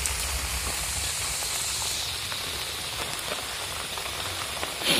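Rain falling steadily on trees, an even hiss with faint scattered ticks of drops and some low rumble in the first couple of seconds. A brief louder rush comes just before the end.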